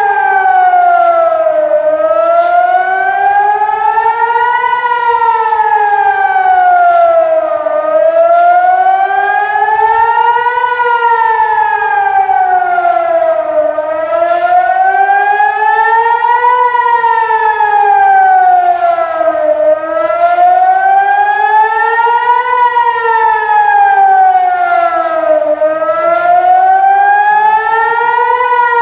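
Civil defence air-raid siren wailing, its pitch slowly rising and falling about every six seconds: the rocket-attack warning sounded over Tel Aviv.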